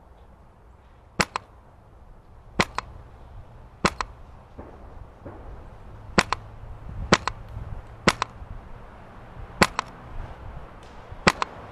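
Krytac SPR airsoft electric gun firing about eight single shots, each a sharp double click, roughly one to two seconds apart. Wind rumbles on the microphone underneath.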